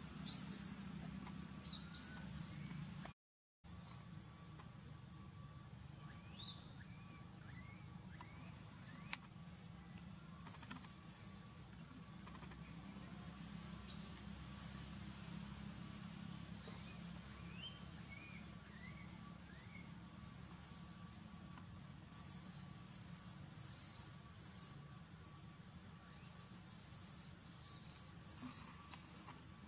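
Short, high-pitched chirps and squeaks in quick clusters, some falling in pitch, over a steady high insect drone. The sound cuts out completely for a moment about three seconds in.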